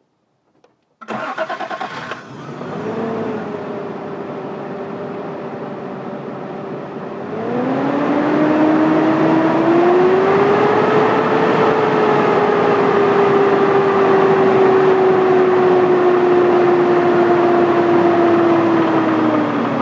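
Rebuilt Toyota 7M-GTE inline-six cranking and starting about a second in, then idling. About seven seconds in it is revved up and held steady near 2000 rpm, dropping back just before the end. The owner questions whether a noise at that speed is rod knock.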